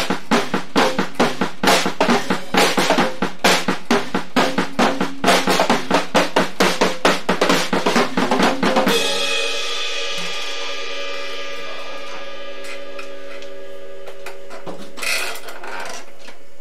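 Fender Starcaster drum kit played in a steady beat on snare, bass drum and cymbals. About nine seconds in the playing stops and the cymbals ring on, dying away slowly.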